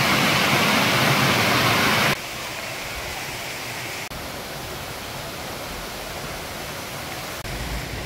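Mountain stream rushing over rocks in a small cascade, a loud steady rush that cuts off suddenly about two seconds in; a quieter steady hiss follows.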